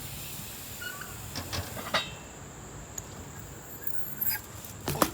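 BMX bike riding on skatepark ramps: a few short, scattered clicks and knocks over a low steady hiss.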